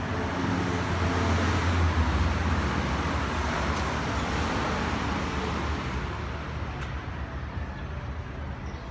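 Kubota XB-1 compact tractor's diesel engine idling: a steady low rumble, a little louder about one to two and a half seconds in.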